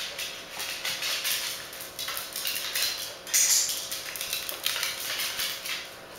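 A corgi's claws clicking and skittering on a tiled floor as it scampers about, a quick irregular patter of ticks with a louder clatter a little past three seconds in.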